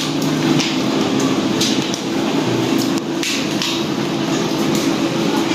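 A steady machine drone with a low held tone, broken by a few short sharp clicks.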